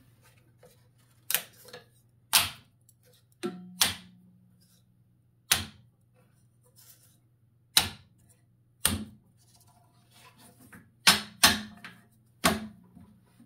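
Small thin wooden panels being set down and stacked on a bandsaw's metal table: about a dozen sharp wooden clacks at irregular intervals, some in quick pairs, over a faint steady low hum.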